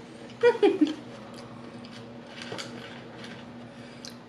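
A woman's short vocal sound, falling in pitch, about half a second in. Then faint clicks and rustling of a plastic fork in a paper taco box, over a faint steady hum.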